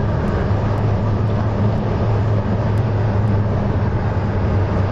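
Steady engine and road drone of a car driving along, heard from inside the cabin, with a constant low hum.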